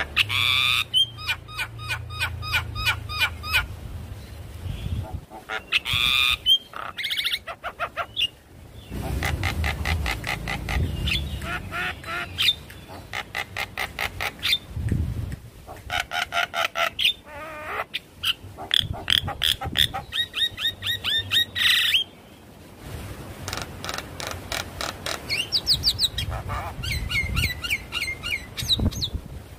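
Javan myna singing: a varied, chattering song of fast runs of repeated notes, broken by short pauses.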